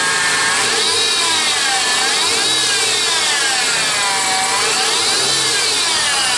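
1998 Honda Passport engine running with a whine from the serpentine-belt idler pulley. The whine rises and falls in pitch about every two seconds. It is the sign of a failing idler pulley, which the owner puts down, probably, to worn bearings.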